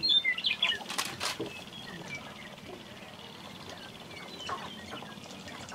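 Sharp-tailed grouse calling on a dancing ground: a quick flurry of short chirping calls with two sharp clicks about a second in, then fainter, scattered calls.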